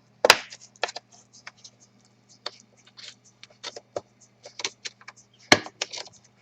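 Irregular sharp clicks and scrapes of a laptop's plastic parts being handled and pried apart, two louder snaps about a quarter second in and about five and a half seconds in, over a steady low hum.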